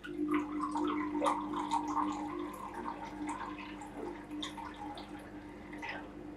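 Water trickling in a thin stream from a small jug into a bowl of flour, over a steady low hum; the sound cuts off suddenly at the end.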